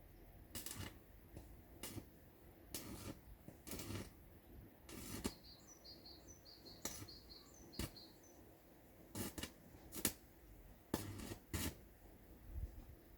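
Irregular sharp clicks and knocks, about a dozen of them, with a small bird chirping a quick run of high notes in the middle.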